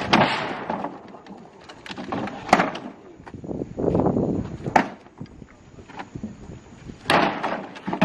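Wooden planks and beams knocking and clattering as they are pulled from and dropped back onto a pile of wrecked timber, with four sharp knocks spaced about two seconds apart and a scraping rattle between them.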